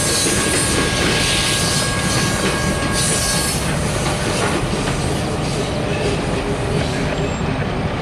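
Covered hopper cars of a freight train rolling past and away: steady rumble and rattle of steel wheels on rail. A thin high squeal runs over it and stops about three and a half seconds in.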